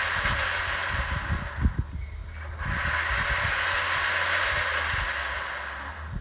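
Brushless motor and drivetrain of a Traxxas E-Revo 1/10 RC truck running with its wheels spinning freely off the ground, a steady whirring hiss. It drops out briefly about two seconds in, picks up again, and winds down near the end as the truck brakes.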